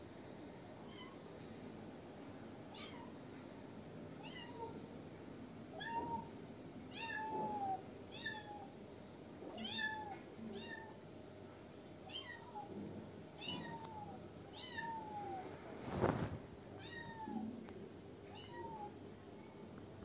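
A kitten meowing over and over from inside the drum of a front-loading washing machine: a long series of short meows, about one a second, each rising and falling in pitch. A single loud thump comes about sixteen seconds in.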